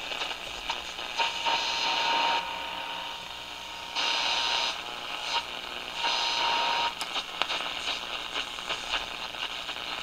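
Panasonic RF-1006MD transistor radio hissing static through its speaker with a faint steady whistle. The hiss cuts in and out in short spells, with scattered clicks and crackles, as the wiring at its newly added external power connector is handled.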